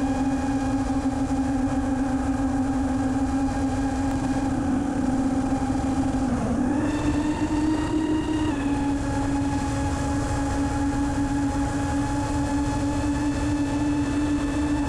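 5-inch FPV quadcopter's brushless motors and propellers whining steadily in flight over a rumble of wind and prop wash. About two-thirds of the way through, the throttle comes up and the whine rises slightly in pitch, holds for about two seconds, then settles back.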